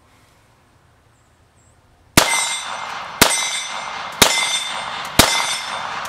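Five 9mm pistol shots from a Glock 19 Gen 4, about one a second, starting about two seconds in, each followed by a metallic ring.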